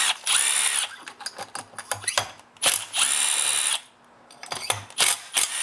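A driver with a T27 Torx bit backing out the screws that hold a Stihl MS260 chainsaw's cylinder to the crankcase. It runs in stretches of about a second each, three times, with scattered clicks of the bit on the screws in between.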